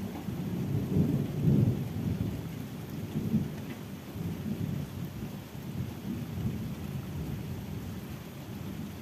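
A long rolling peal of thunder over steady rain. It starts suddenly, is loudest about one to two seconds in, then rumbles on and slowly fades.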